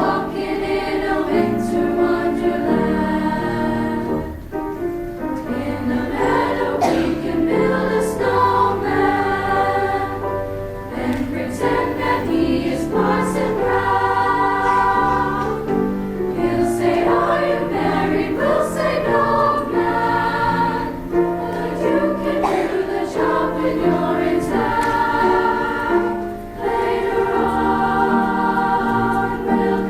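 Women's choir singing in parts, with held notes that move to new chords every second or so.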